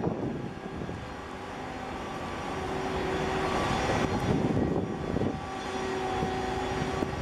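Steady drone of a marine diesel engine with a few held humming tones over a haze of water and wind noise, growing a little louder about halfway through.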